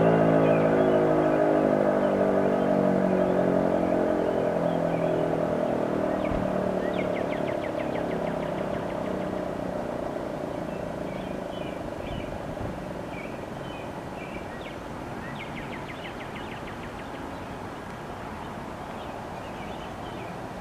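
Fedelcode Model 5 three-phase mechanical fire siren winding down after its Alert signal: its single tone slides slowly lower in pitch and fades away.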